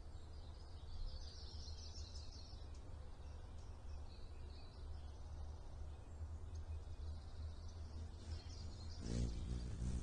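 Faint, high bird chirps over a steady low outdoor rumble. About nine seconds in, a louder low buzzing hum with evenly spaced overtones starts.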